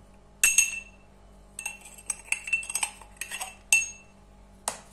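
A metal spoon clinking and scraping against a metal cup while knocking flour into a plastic bowl: a run of short ringing clinks, the loudest about half a second in and another near the end.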